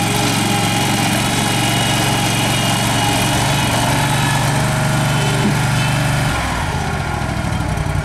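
Engine of a 2007 Terramite T7 compact tractor-loader-backhoe running steadily as the machine drives along, its note shifting about six seconds in.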